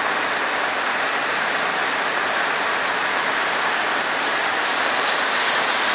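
Heavy rain falling steadily onto wet asphalt pavement, an even wash of drops splashing on the puddled surface.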